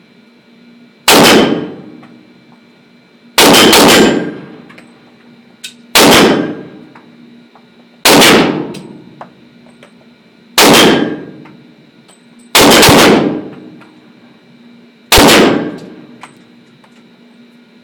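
Seven single shots from a Glock 9 mm pistol, fired slowly about two to two and a half seconds apart, each very loud and trailed by the ringing echo of an indoor range.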